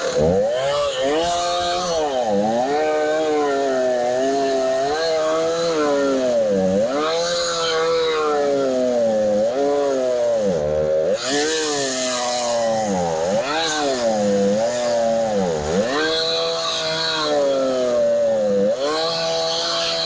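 Two-stroke chainsaw cutting crosswise through a squared log, its engine pitch sagging under load and picking back up again every couple of seconds as the chain bites into the wood.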